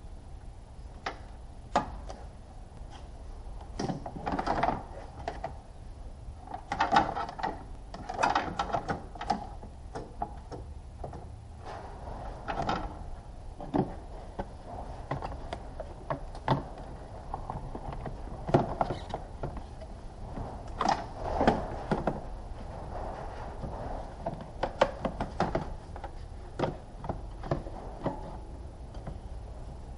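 Irregular clicks, knocks and light clanks of hand work on car parts, some in quick clusters, over a steady low hum.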